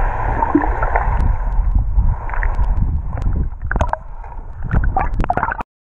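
Muffled underwater sound picked up by a submerged camera: a low, steady rumble of moving water, with several short clicks and knocks in the second half. It cuts off suddenly just before the end.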